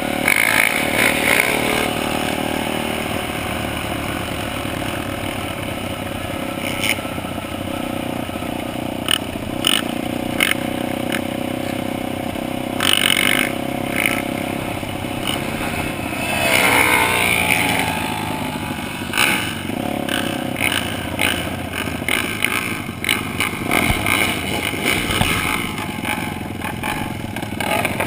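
Dirt bike engine running under load as the bike laps a dirt track, revving up and down, heard from a camera mounted on the bike.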